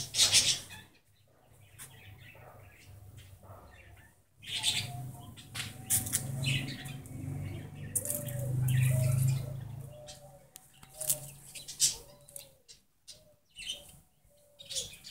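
Birds chirping and calling in short, scattered bursts, with repeated short whistled notes in the second half. An uneven low rumble runs underneath and swells briefly in the middle.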